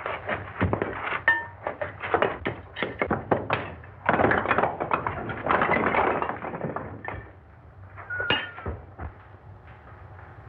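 Bricks being knocked loose and falling as a brick wall is torn down: a string of knocks and clatters, thickening into a longer tumble about four seconds in, then dying away.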